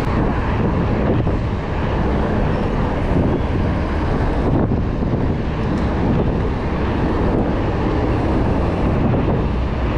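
Wind buffeting the microphone of a camera carried on a moving mountain bike: a steady, dense rumble of rushing air, heaviest in the low end.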